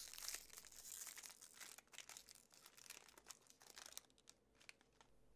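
Ink cartridge packaging being torn open and crinkled by hand: a faint, dense crackle for about four seconds that thins out to a few scattered ticks near the end.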